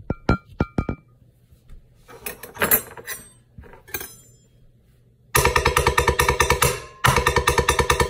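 Improvised kitchen percussion: knives striking metal bowls and kitchenware. A few sharp ringing metallic strikes open it, then scattered clattering strokes, and from about five seconds in a fast, even roll of hits with a steady ringing tone, which breaks off abruptly twice.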